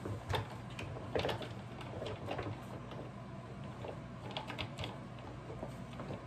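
Scattered light clicks and knocks of hand tools and metal parts being handled on a workbench, the sharpest about a second in and a quick cluster past the middle, over a low steady hum.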